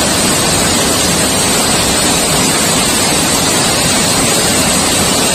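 Waterfall pouring over rocks into a shallow pool close by: a loud, steady rush of falling water.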